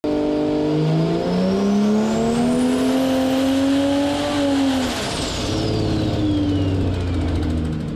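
Built BMW B58 turbocharged inline-six on an engine dyno, making a pull: the engine note climbs steadily for about four and a half seconds with a rising turbo whine. Then the throttle closes, and the revs drop while the turbo whine winds down.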